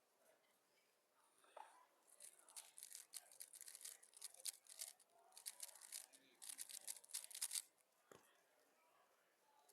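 GAN 15 MagLev 3x3 speed cube being turned at high speed, a rapid run of light clicking and clacking for about six seconds, then a single low thump.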